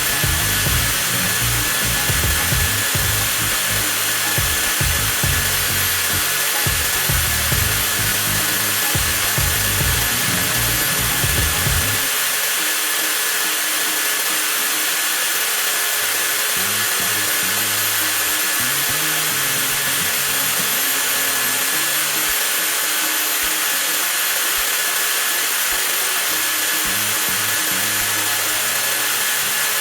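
TOTAL 20V cordless angle grinder's motor running continuously at a steady high speed, with a constant whine. A rougher low rumble underneath drops away about 12 seconds in.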